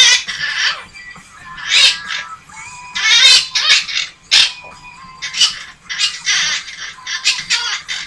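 Blue Quaker parrot (monk parakeet) chattering and squawking in a quick string of loud, harsh calls, about one or two a second, with music playing underneath.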